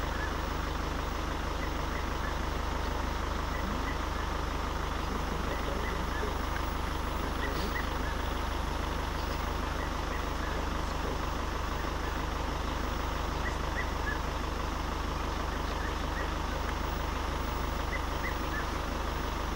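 A vehicle engine idling steadily, a low, even rumble, with faint short high chirps here and there.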